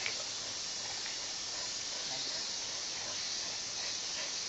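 Steady outdoor background hiss picked up by a security camera's microphone, with faint, indistinct voices in the first half.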